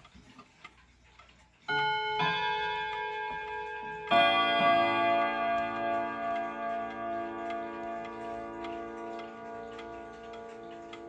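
Chime of a 1975 Jauch triple-chime wall clock struck three times in the first half, the notes ringing together and fading slowly, with the movement ticking faintly underneath.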